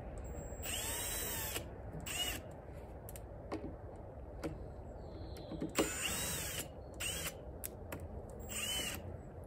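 Electric drill backing out screws from a wooden beehive panel, run in about five short bursts, each a whine that rises and then falls in pitch as the trigger is squeezed and let go.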